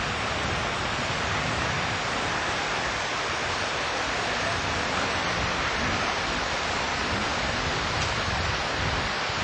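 Rushing mountain stream: a steady hiss of water over rocks, with an uneven low rumble underneath.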